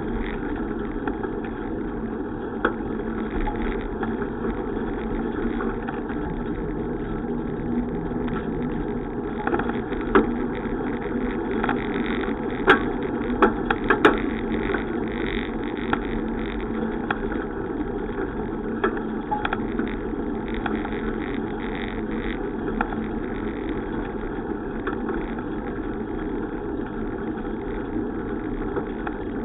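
Steady road and riding noise of a bicycle ride, picked up by a camera on the move. A few sharp clicks or rattles come a little before halfway.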